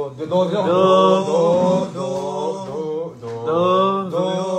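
Male voice singing a few long held notes at a nearly steady pitch, as in vocal practice.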